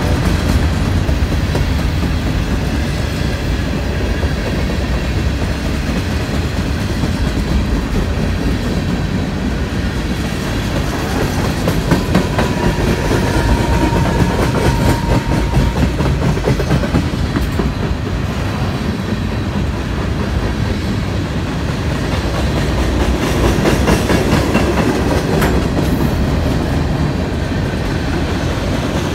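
Norfolk Southern freight train's cars rolling past close by: a steady, loud rumble with the clickety-clack of wheels over the rail joints.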